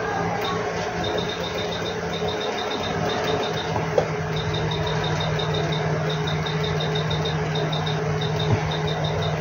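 Steady hum of a hot air rework station's blower, with runs of fast, faint high ticking and two light knocks, one near the middle and one near the end.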